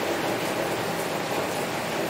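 Heavy rain falling steadily on a window: a dense, even hiss with a few faint taps of single drops.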